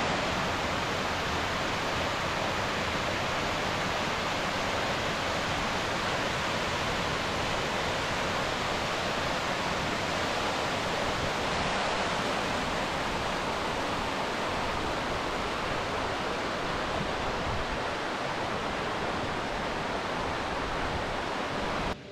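Small mountain stream cascading over rocks in a series of little waterfalls: a steady rush of water that cuts off suddenly near the end.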